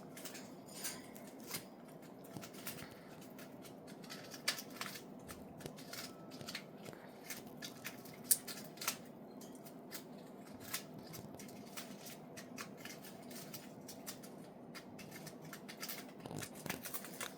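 Budgies nibbling and picking at foraging material: scattered small sharp clicks and crisp snips, a few a second and uneven, over faint room hum.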